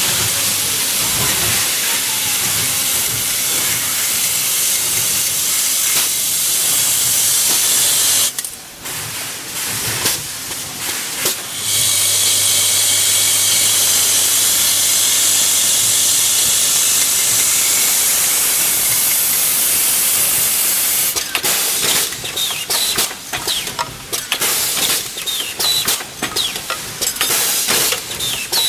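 Hinge-production machinery running on a factory floor: a steady, loud hiss-like din, with a low steady hum through the middle stretch while a round parts-feeder bowl runs, and irregular clicking and clattering in the last several seconds.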